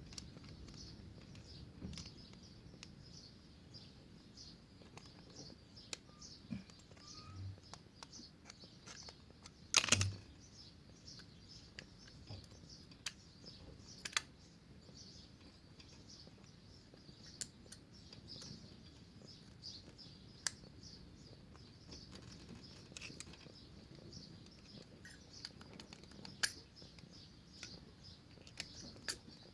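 Sporadic light metal clicks and taps of pliers and hand tools working at a motorcycle's rear brake caliper pad pins, with one louder knock about ten seconds in. Birds chirp faintly throughout.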